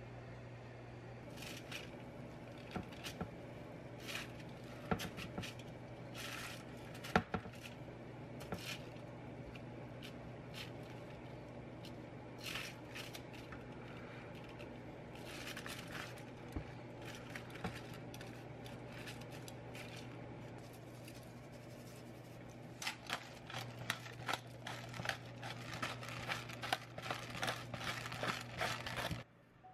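Scattered clicks and crinkles of aluminium foil and a metal baking tray as baked chicken skewers are handled, over a steady low hum. The clicks come close together in the last several seconds.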